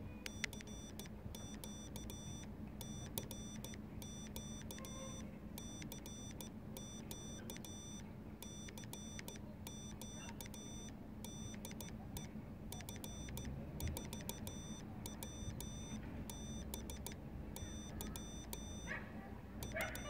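Frog Sounds CW transceiver's Morse code sidetone keying out a general CQ call: high-pitched beeps in dots and dashes, over a low steady hum.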